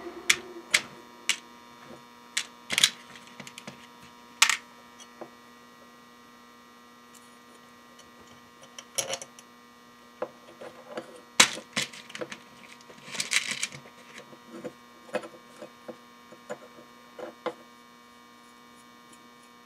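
Scattered sharp clicks and short rattles of small metal screws, nuts and a metal heat-sink plate being handled while transistors are fitted to the heat sink, over a steady electrical hum.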